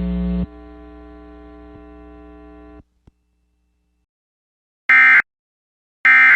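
A buzzing hum on the broadcast audio that drops in level about half a second in and stops near three seconds. After a short silence come two short, loud bursts of EAS digital data tones about a second apart, the SAME end-of-message signal that closes an alert.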